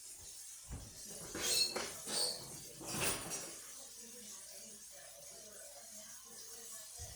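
Kitchen utensils clinking and clattering, a few sharp knocks and rattles in the first half.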